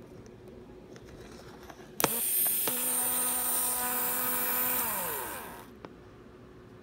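Small brushed DC motor, rated for 6 volts but run here on 12 volts, starting with a click and spinning with a steady high whine for about three seconds, then winding down with falling pitch.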